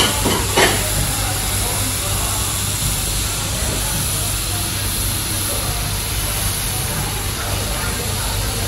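Meat sizzling on a hot griddle plate at a tabletop Korean barbecue, a steady hiss over a low hum, with two brief clicks near the start.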